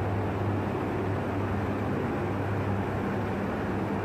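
Paint booth ventilation running: a steady machine hum with a constant rush of moving air.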